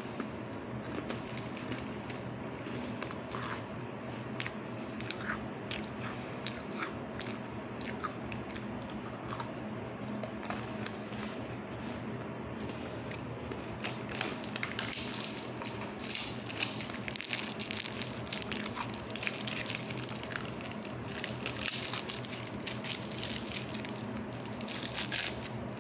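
Close-up chewing and crunching of crunchy cookies, likely Oreos. It starts as scattered crisp clicks and becomes denser and louder about halfway through. A steady low hum runs underneath.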